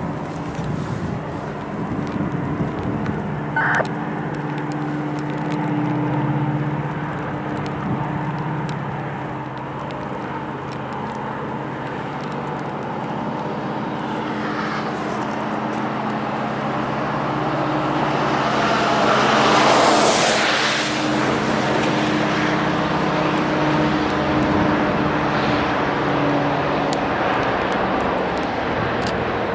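Three EMD SD75I diesel locomotives droning steadily under power as a freight train approaches. A louder rushing swell builds to a peak about twenty seconds in and then fades.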